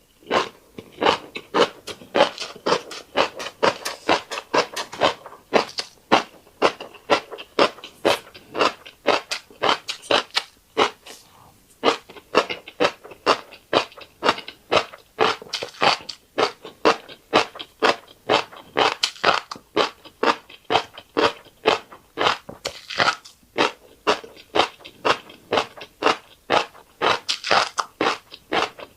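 Close-miked chewing of fish roe and rice: a steady run of crisp crunching and popping clicks, a few per second, with a brief pause partway through.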